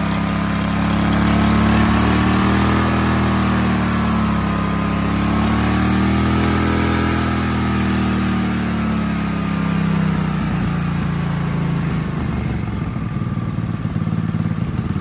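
Small single-cylinder kart engine driving a Comet 40 series torque converter, revved up and held at raised speed with the pitch wavering, the clutch engaged and turning the belt. About ten seconds in the revs drop back to idle, where the separate firing beats can be heard.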